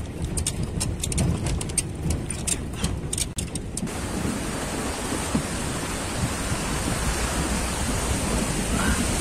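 A vehicle rolling over a gravel road, with many small stones crackling and clicking under the tyres over a low rumble. About three and a half seconds in the sound cuts to a steady rushing noise of a vehicle driving through fast-flowing floodwater in a river.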